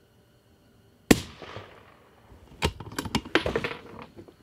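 Bolt-action .308 rifle: the trigger is pulled and the action lets off one sharp, loud snap about a second in, with a short ringing tail. About a second and a half later comes a quick run of metallic clicks and rattles as the bolt is worked open and the round is pulled out.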